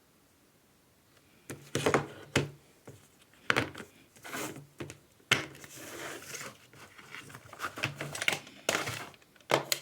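Packaging being handled and torn open: irregular crinkling and tearing that starts about a second and a half in.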